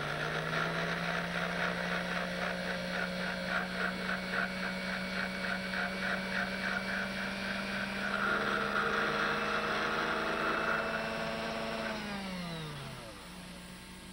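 Small lathe motor spinning up and running with a steady hum while a flat file rasps against the spinning clock arbor to round off the end of the new pivot, in rhythmic strokes of several a second and then a steadier rasp. Near the end the motor is switched off and its hum falls away as it winds down.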